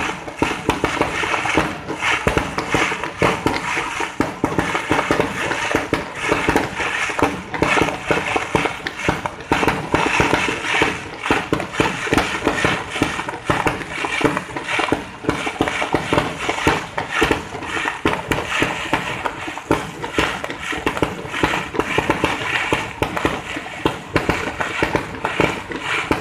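Fireworks going off in a dense, continuous stream of rapid crackles and pops.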